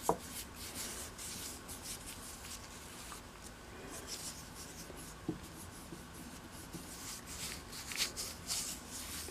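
Gloved hands rubbing finish into a wooden draw-knife handle: soft, repeated rubbing strokes, with a small click right at the start.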